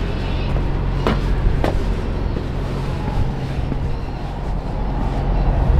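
Semi-truck diesel engine idling with a steady low hum, with two short clicks about a second in, half a second apart.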